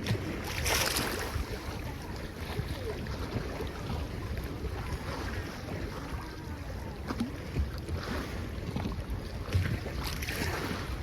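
Sea waves washing and splashing in at high tide, with wind rumbling on the microphone; a louder splash comes about a second in and another near the end.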